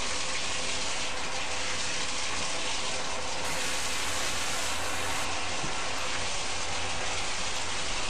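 Shower running: a steady, even hiss of spraying water.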